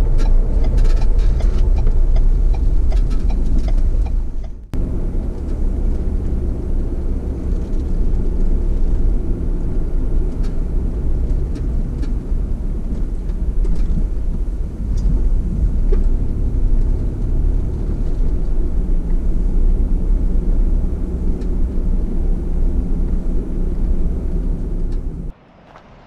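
A car driving, its engine and road noise a steady low rumble heard from inside the cabin. It cuts out briefly about five seconds in and drops away sharply near the end.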